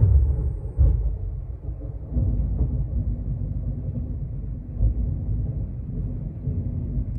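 Storm wind gusting outside in a loud, uneven low rumble, with a single knock about a second in.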